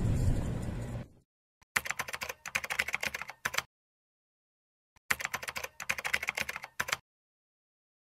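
Two quick bursts of typing on the ThinkPad T420's laptop keyboard, each about two seconds of rapid key clicks, separated by a pause. In the first second a loud noise fades away before the typing.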